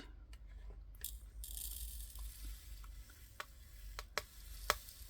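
Faint handling sounds of small plastic drill bags and containers: a soft plastic rustle for a second or two, with about half a dozen sharp light clicks spread through.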